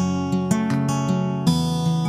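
Instrumental music: acoustic guitar strumming chords in a regular rhythm, with no singing, as the song plays out after its last sung line.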